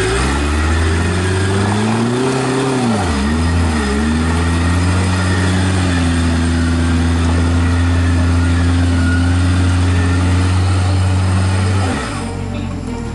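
Off-road 4x4's engine revving hard: the pitch climbs, dips twice, then holds at steady high revs for about seven seconds before dropping off near the end.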